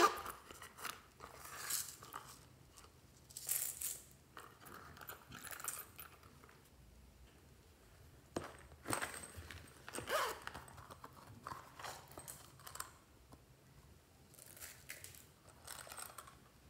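Hands handling small silicone and plastic toy cases over a glass bowl of slime: irregular rustling and scraping, with a sharp click about eight and a half seconds in.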